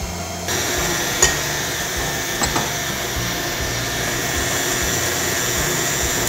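Electric stand mixer running, its beater creaming butter and sugar in a stainless steel bowl as eggs are beaten in a little at a time. The motor gets louder about half a second in, then runs steadily.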